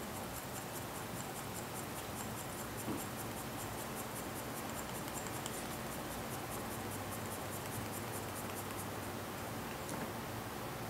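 Paper strip being wound onto a slotted quilling pen: a faint rapid scratchy ticking of the paper and tool, several ticks a second, that stops shortly before the end. One small knock about three seconds in.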